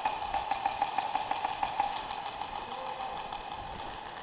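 Rapid, continuous mechanical clatter of airsoft gunfire: electric airsoft guns firing on full auto.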